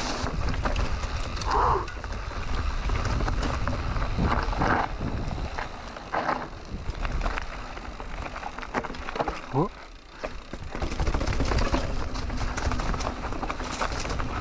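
Canyon Neuron full-suspension mountain bike descending a rough trail: tyres crunching over dirt, stones and dry leaves, with the bike rattling and knocking over bumps and a steady low wind rumble on the microphone. Near the end the tyres roll onto cobblestones.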